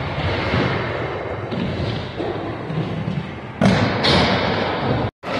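Skateboard wheels rolling on a wooden vert ramp, with a loud clack about three and a half seconds in as the board comes down on the ramp, followed by louder rolling. The sound drops out for a moment near the end.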